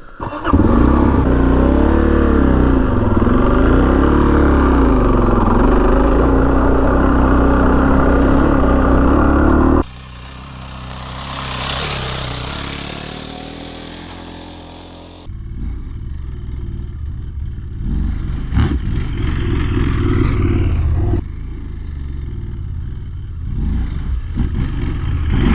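Dual-sport motorcycle engine being ridden off-road, its revs rising and falling with the throttle. About ten seconds in it drops abruptly to a quieter engine that swells and fades. From about fifteen seconds in, the engine is loud again under throttle.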